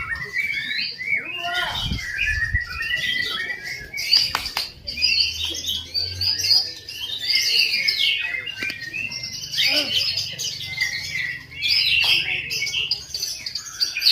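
White-rumped shamas singing, several at once: a dense, unbroken stream of quick, varied whistles and chirps overlapping one another.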